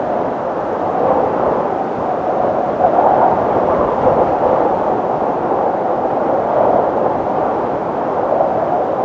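Wind sound effect: a steady rush of wind, strongest in the middle of its range, swelling and easing gently every second or two.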